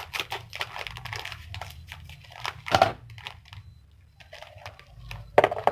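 Crinkly plastic snack packet rustling and crackling as it is opened and handled, in irregular bursts with one sharper crackle about three seconds in.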